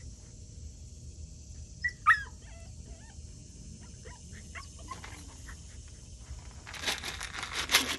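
A small dog gives a sharp, high cry that falls in pitch about two seconds in, followed by a few faint short squeaks, then scuffling noises near the end.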